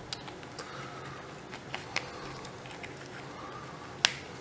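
Small objects being handled: a few scattered light clicks and taps, the sharpest about four seconds in, over a faint steady background.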